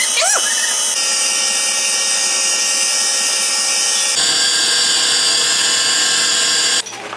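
Power tool running steadily at full speed with a high whine, cutting off just before the end.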